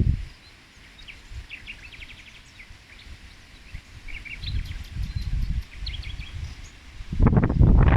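Wind gusts buffeting the microphone as low rumbles, building in the middle and strongest near the end, while small birds chirp repeatedly.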